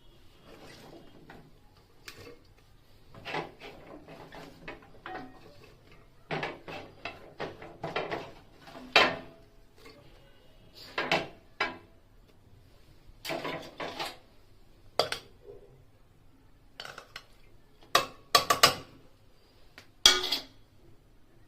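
Metal utensils clinking and scraping against cookware in irregular bursts, with a few sharp, ringing clanks, the loudest about nine seconds in and near the end.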